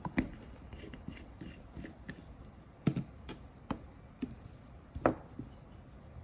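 Nail polish bottles and a clear stamper being handled and set down on a hard tabletop: a string of small clicks and knocks, three of them louder, near the start, just before three seconds and just after five seconds.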